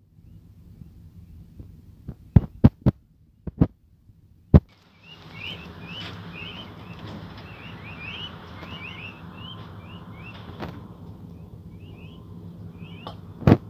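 Peachicks peeping in short, high, rising chirps for most of the second half, over a low steady hum. Before that come a few sharp loud taps and knocks, and two more loud knocks near the end.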